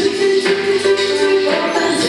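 Children's dance song: a female voice sings a long held note over an upbeat backing track.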